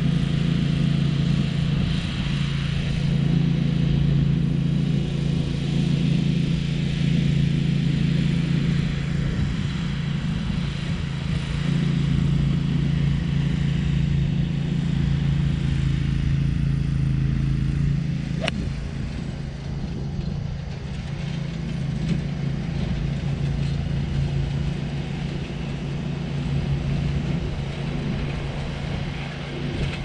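Steady engine drone of a riding greens mower, with one sharp click of an iron striking a golf ball about eighteen seconds in.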